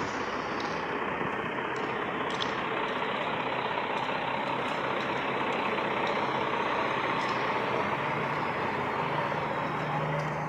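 Iveco 440 truck running with a steady rush of escaping air from its broken air compressor pipe.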